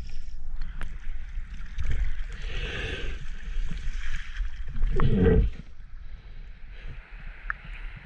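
Creek water sloshing and gurgling as a snorkeler moves through it, with a louder slosh about five seconds in.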